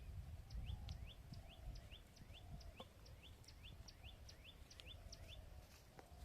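Faint bird calls: short rising chirps repeated steadily about three times a second, over low background rumble.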